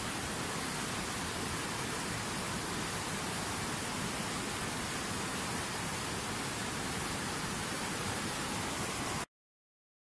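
Steady, even rushing noise with no rhythm or pitch, cutting off abruptly to silence about nine seconds in.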